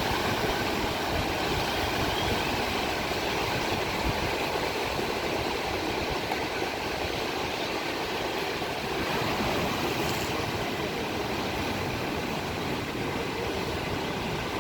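Steady roar of big ocean surf breaking, with wind buffeting the microphone.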